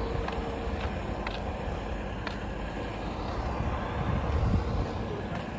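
Heavy tow trucks' diesel engines running steadily, a low rumble with a faint steady whine that comes and goes. A few light clicks are scattered through it.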